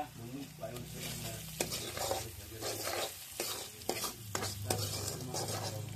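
Food frying in a pan while being stirred, heard as a run of irregular scraping strokes with sharp clicks over a steady low hum.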